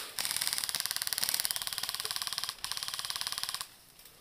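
Airsoft electric rifle firing on full auto: long bursts of rapid, evenly spaced shots with a brief pause between them, cutting off about three and a half seconds in.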